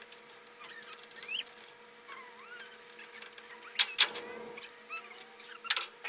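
Dogs whining in high, wavering squeaky cries. Sharp clicks come about four seconds in and again near the end.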